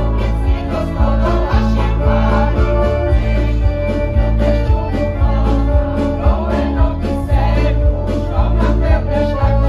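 Women's folk choir singing in unison to piano accordion accompaniment, amplified through stage speakers, with a steady beat in the bass.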